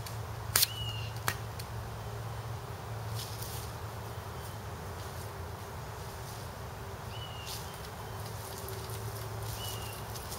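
Two sharp shots from a BB gun less than a second apart, about a second in, against a steady low hum. Faint ticks and a few short high chirps follow.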